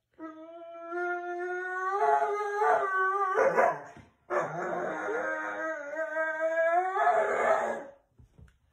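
Dog howling: two long howls, the first breaking off about four seconds in, the second ending rougher and fading about a second before the end.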